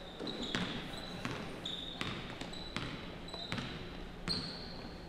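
A basketball being dribbled on a hardwood gym floor: a string of irregular bounces, with short sneaker squeaks among them.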